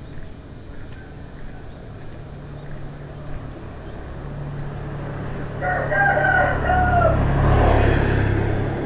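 A motorbike engine draws near and passes close by, growing louder and loudest near the end. A rooster crows once about six seconds in, a call of just over a second.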